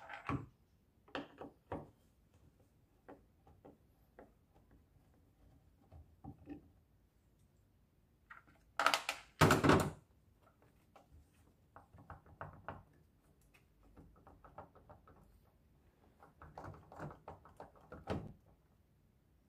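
Screwdriver clicks and small plastic knocks as a washing machine's water inlet valve is unscrewed and worked loose from its plastic housing. There is a louder double knock about nine seconds in, then light rattling clicks as the valve is pulled free.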